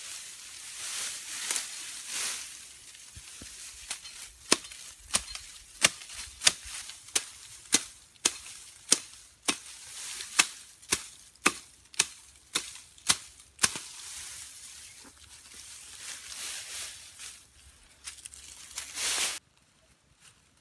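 Tall grass rustling as it is grabbed in handfuls, with a run of about sixteen sharp, evenly spaced snaps, about one and a half a second, as the stems are cut low near the ground.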